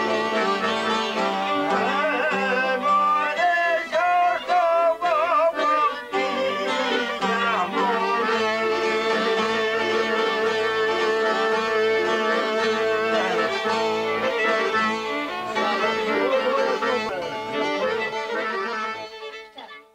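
Albanian folk ensemble of violin, sharki, çifteli and accordion playing, the violin leading with ornamented, sliding runs over the plucked lutes. The music fades out near the end.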